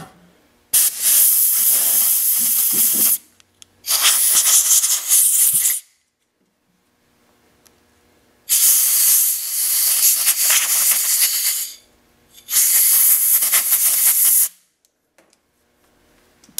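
Compressed air from an air-compressor blow gun hissing in four bursts of two to three seconds each, with short pauses between them, blowing dirt out of a small-engine carburetor.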